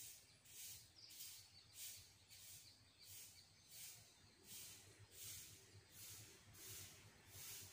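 Faint footsteps crunching on a gritty sandy path at walking pace, about two steps a second.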